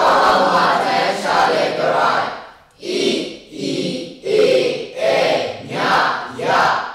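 A class of students reciting Burmese lesson text aloud in unison, a chorus of voices chanting syllable by syllable with short breaks between phrases.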